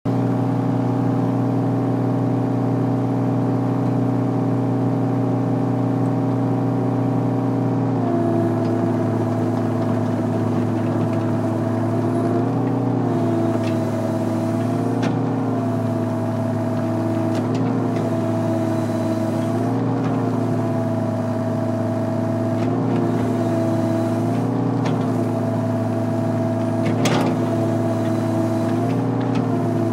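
Volvo excavator's diesel engine and hydraulics running steadily, heard from inside the cab. About eight seconds in the note shifts, then it dips and recovers every two to three seconds as the joystick is worked under load, with a few short knocks.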